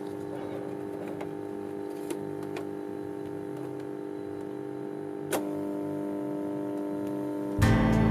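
Astra-110 Stereo reel-to-reel tape recorder running with a steady hum, with a few light clicks as it is handled. A sharper click comes about five seconds in, after which the hum is a little louder, and music starts loudly near the end.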